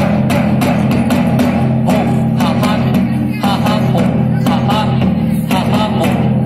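Loud folk dance music: a driving drumbeat with a voice singing over it.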